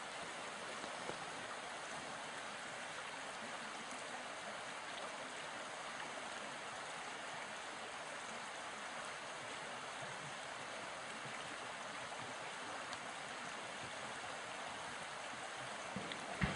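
Steady, even rushing outdoor background noise with no distinct events, and a brief sharp sound just before the end.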